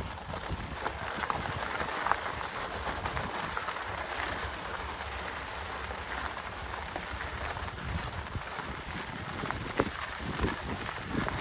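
Mountain bike riding a dirt trail: a steady gritty crackle of tyres on dirt with scattered sharp clicks and knocks, under wind rumbling on the microphone.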